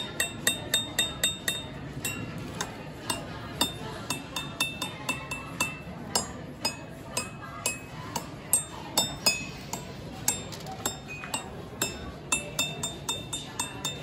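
Ceramic mugs clinked over and over with a wooden stick, a few sharp clinks a second, each ringing briefly at a high pitch.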